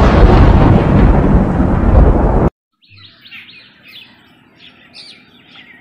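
Thunderstorm sound effect: heavy rain with rumbling thunder, cutting off suddenly about two and a half seconds in. Faint birds chirping follow.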